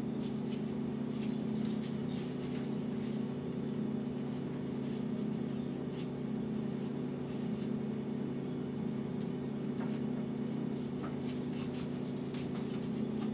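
Steady low hum of a kitchen appliance motor, with faint scattered ticks throughout.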